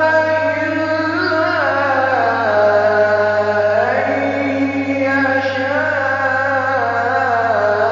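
A male reciter chanting the Quran in the melodic tajwid style, one voice holding long drawn-out notes that slide smoothly up and down in pitch.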